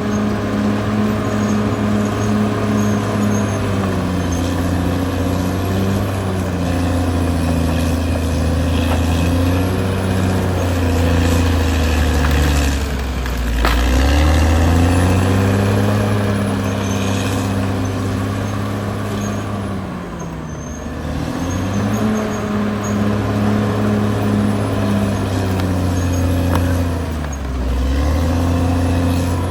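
Caterpillar D6R XL bulldozer's diesel engine working under load. The engine note sags and climbs back several times, around the middle, about two-thirds through and near the end.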